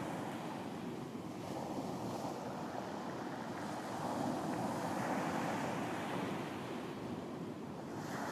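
Ocean waves washing onto a beach, a steady surf wash that swells and eases, with wind.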